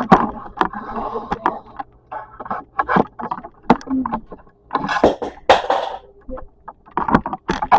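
Handling noise: a string of clicks and knocks, with two louder scraping, rustling noises about five seconds in.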